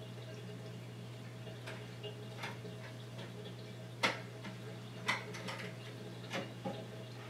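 Irregular clicks and taps from an aquarium siphon gravel-vacuum tube worked through the sand and rock of a reef tank, with grains knocking inside the tube. The sharpest taps come about four and five seconds in, over a steady low hum.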